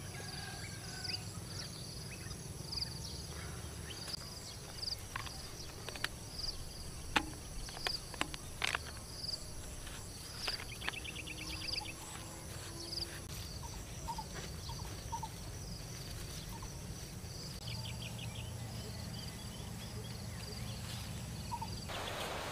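Insects in a field: a steady high drone with a short chirp repeating about once a second. Scattered clicks and taps come from plastic pipe fittings being handled and pressed together.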